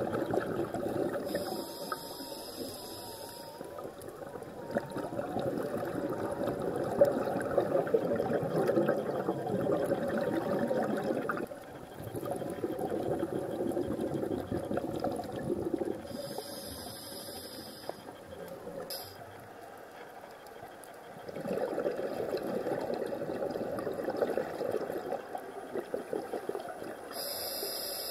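Muffled rushing water noise picked up by a camera underwater, swelling and dropping back several times, with brief high tones at intervals.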